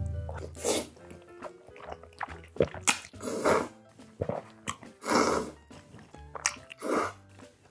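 Close-miked slurping of jjajangmyeon (black-bean-sauce noodles), several long wet slurps with chewing clicks between them, over light background music.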